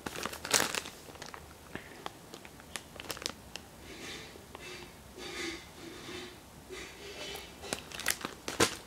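Clear plastic parts bag crinkling and rustling as it is handled, with scattered sharp clicks. The loudest clicks come about half a second in and again near the end.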